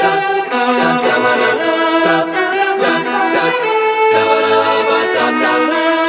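Music: a violin melody over layered a cappella voices, with a pulsing low vocal bass line.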